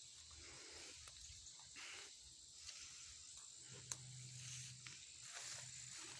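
Faint outdoor ambience on a lakeside trail: a steady high insect drone with soft, irregular rustling steps, and one small sharp click about four seconds in.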